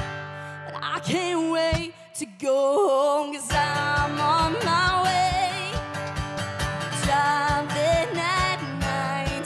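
Live acoustic song: a woman singing over a strummed acoustic guitar and steady cajón beats. About two seconds in, the guitar and cajón drop out and she sings alone for a moment, then they come back in.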